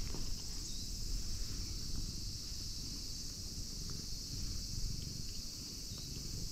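Steady high insect drone, over a low, uneven rumble.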